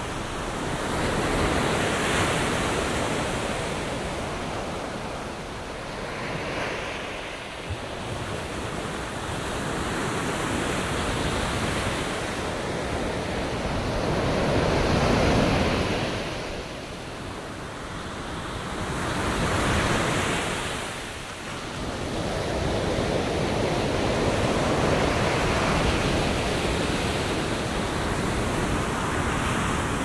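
Atlantic Ocean surf on a sandy beach: waves breaking and washing in, swelling and fading every few seconds, with some wind on the microphone.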